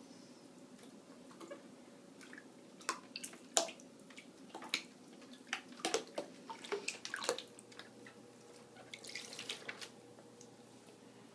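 A ferret splashing about in a plastic tub of water: a quick run of sharp splashes and drips for a few seconds in the middle, then a softer swish of stirred water near the end.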